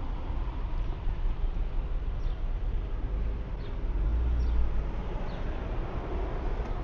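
Outdoor street ambience: a steady low rumble, heaviest about four seconds in, with about four short, falling bird chirps from the street trees.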